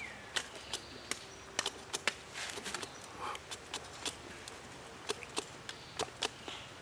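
Knife blade whittling a thin wooden stick: an irregular run of short, sharp scrapes and clicks, a few a second.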